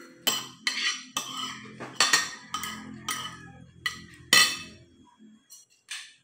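Spoon and fork clinking and scraping on a ceramic plate while eating: a quick, uneven run of sharp clinks for about five seconds, the loudest one about four seconds in.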